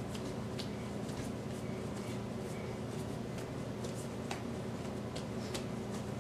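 Hands kneading a ball of dough on a stone countertop: faint, irregular soft pats and scuffs of the dough pressed and turned against the stone, over a steady low hum.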